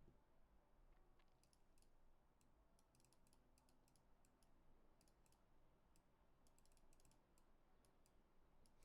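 Faint computer clicking over a near-silent room: irregular clicks, several a second, beginning about a second and a half in.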